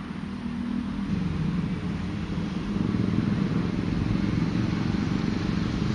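A motor vehicle's engine running steadily, a low hum that grows a little louder after the first second.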